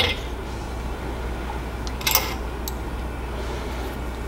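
Light metal clinks and a short clatter as a Predator 212 stroker engine's cylinder head is worked loose and lifted off the block: a click at the start and a louder clatter about two seconds in, over a steady low hum.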